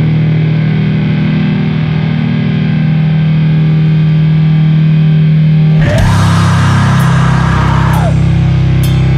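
Sludge metal: heavily distorted guitars hold a low, droning chord. About six seconds in the band moves to a new chord under a loud, noisy wash that lasts about two seconds, with a few sharp hits near the end.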